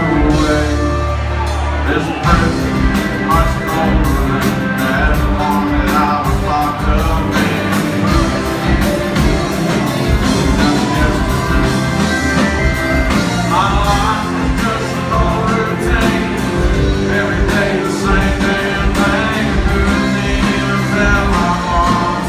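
Live country band playing a full-band song, heard from the audience in a large hall.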